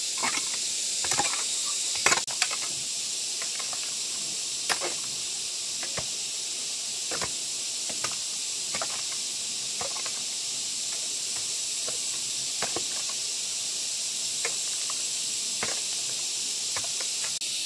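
Steady high-pitched insect drone, like cicadas, with irregular sharp taps and knocks every second or two.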